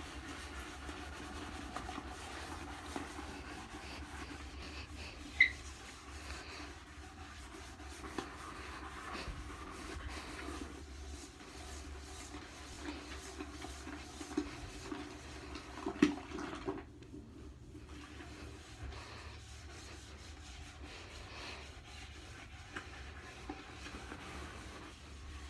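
Scrub sponge rubbing and swishing against the wet porcelain inside a toilet bowl full of foamy cleaner, with a short squeak about five seconds in and a few sharp knocks in the middle.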